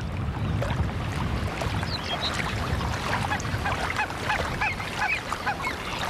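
Greylag geese calling: a run of short, rising-and-falling calls, repeated several times a second through the second half, over a steady low rumble.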